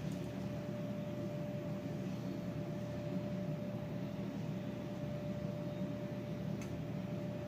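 Steady electrical hum and hiss, with a faint constant tone held throughout and one light click near the end.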